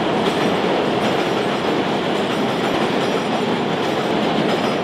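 New York City subway train running past the platform at close range, a loud, steady noise of the cars on the track.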